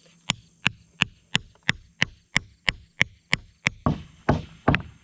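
A hammer driving a stake into the ground with sharp strikes, about three a second and evenly spaced. From about four seconds in the blows come heavier and less even.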